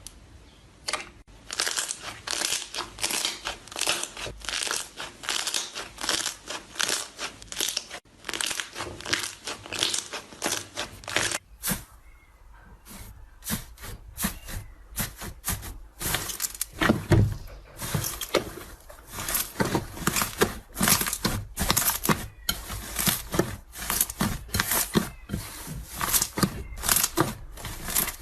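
Slime being squeezed and kneaded by hand, giving quick crackling pops and clicks of trapped air, several a second, with a brief lull about halfway through.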